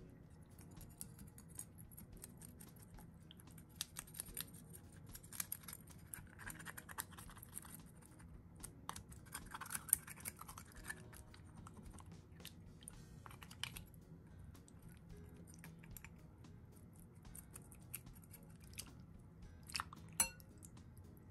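Sea bream pieces being rubbed and scraped clean in a glass bowl of water: faint splashing and wet scratching with scattered small clicks, and two sharper clicks, about ten seconds in and near the end. This is the cleaning of scales and slime off the fish before simmering.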